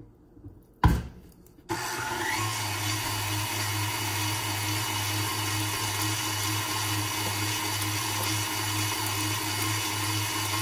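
Electric stand mixer with a wire whisk attachment starting up about two seconds in and running steadily, beating cake batter in a stainless steel bowl for its final short mix. A single sharp knock comes about a second in, just before the motor starts.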